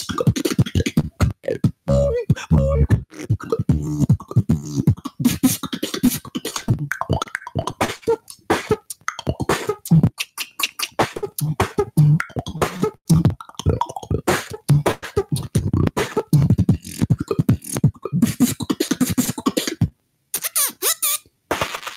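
A solo beatbox routine performed into a handheld microphone: a fast stream of vocal kick, snare and hi-hat sounds layered with low bass tones, broken by a brief pause near the end.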